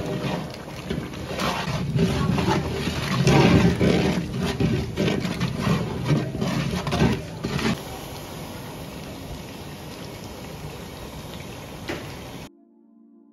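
Long metal ladle stirring and scraping through a large aluminium pot of bubbling biryani masala gravy, with liquid sloshing and sizzling, for about eight seconds; then a quieter steady hiss. Near the end it cuts off abruptly to soft ambient music.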